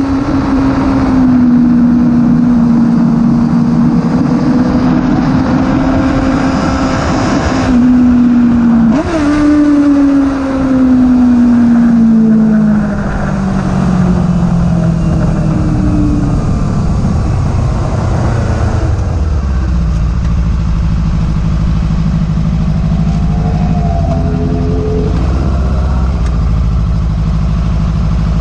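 On-board sound of a 1000cc sportbike on track, over wind rush. The engine runs steadily at high revs, with a quick rev spike about nine seconds in. The note then falls steadily as the bike slows, and settles into a low, steady note at low revs for the last ten seconds.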